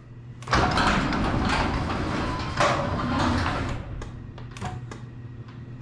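Genie garage door opener running the door downward: motor and moving door panels rumbling for about three seconds, then stopping, followed by a few light clicks. This is the door being lowered in adjustment mode to close the gap at the floor.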